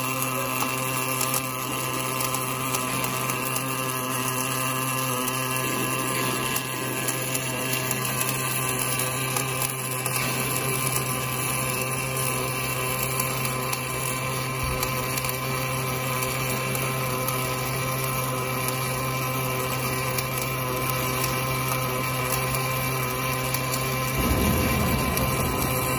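Automatic wire-fed arc welder working on the joint between a hydraulic cylinder rod and its rod-end eye: a steady electric hum with several fixed tones under a fine crackle from the arc. A lower rumble joins near the end.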